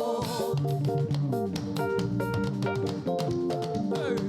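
A church praise band playing an instrumental passage between sung lines: guitar and bass guitar over a drum kit with a steady beat.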